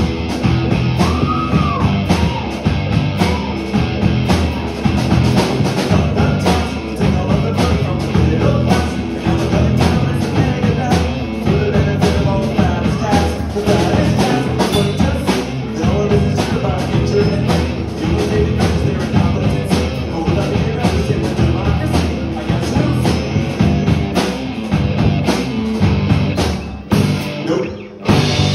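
Live rock band playing: electric guitars, bass guitar and drum kit together at full volume with a steady drum beat. Near the end the band drops out briefly and then comes back in.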